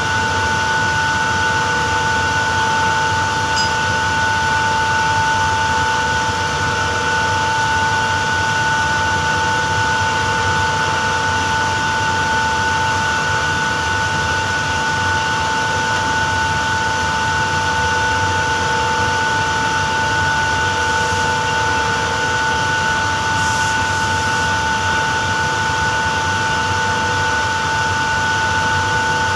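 HVAC plant machinery (air-handling unit and refrigeration compressor equipment) running steadily: a constant hiss with a steady whine in it and no change throughout.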